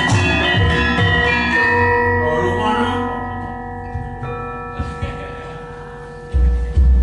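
Javanese gamelan ensemble playing with drum strokes, then stopping about a second and a half in, leaving the bronze keys and gongs ringing on and slowly fading. Two low thumps near the end.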